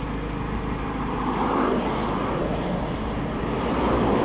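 Highway traffic passing close by: trucks and cars going past, the tyre and engine noise swelling about a second and a half in and again near the end.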